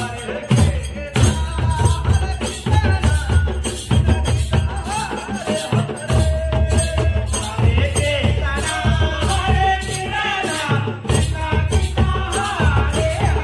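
Live devotional kirtan music: a dholak and large barrel drums beaten in a steady rhythm with jingling percussion over them, and a man's voice singing through a microphone at times.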